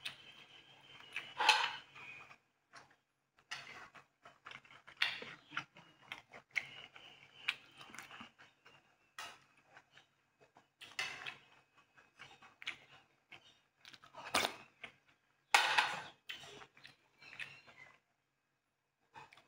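Close-up tableware and food-handling sounds: fingers working sticky rice, and a metal spoon clicking and scraping against ceramic bowls and plates. The sound is a run of short, irregular clicks and soft knocks.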